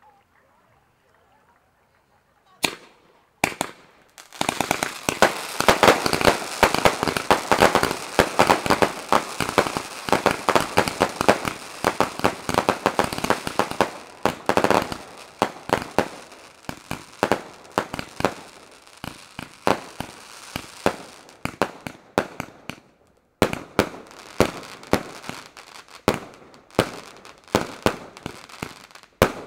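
Fireworks going off: a couple of single bangs, then a fast, dense barrage of launches and crackling bursts. It thins out, stops briefly about 23 seconds in, then starts again with more rapid cracks.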